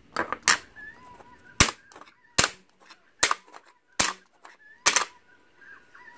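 Fingers flicking and tapping a vibration sensor module and its clear plastic mount: about seven sharp, unevenly spaced taps, mostly in the first five seconds.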